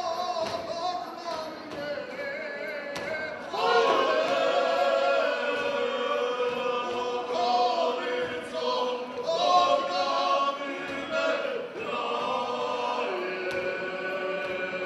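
A group of voices singing a folk song in chorus for a round dance, with long held notes that slide from one pitch to the next. The singing gets louder about three and a half seconds in.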